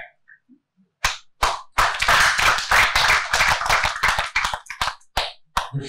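Audience applauding: a few separate claps about a second in, building quickly into a full round of clapping that thins out to a last few claps near the end.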